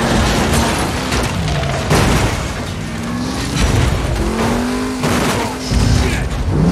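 Action-film sound mix: a sports car engine revving in several rising glides, with a few heavy crashes and booms and a music score underneath.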